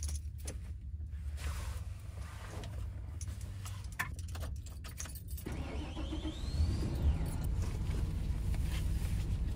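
Keys jingling and clicking, then a van engine starts a little past halfway and runs at idle. Rustling and clicks near the end as a windshield sunshade is handled.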